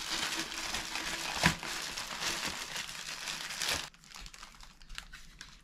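Clear plastic packaging bag crinkling and rustling as a kayak paddle section is pulled out of it, with one sharp knock about one and a half seconds in. The crinkling stops about four seconds in, leaving a few faint clicks.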